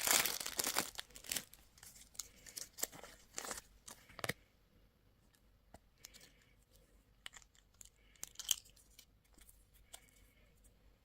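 Wrapping on candy or toy packaging torn and crinkled by hand: a dense crinkling at first, thinning to scattered crackles and clicks, then only a few faint ticks after about four seconds.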